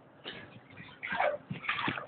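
Water sloshing and splashing in irregular surges as legs in hip waders wade through knee-deep water inside a culvert pipe.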